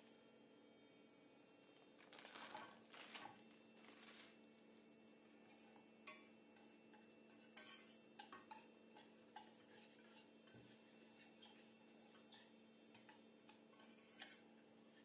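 Faint clinks and scrapes of a wire whisk against a stainless-steel saucepan, stirring dark chocolate pieces into cream, in scattered short bursts over a low steady hum.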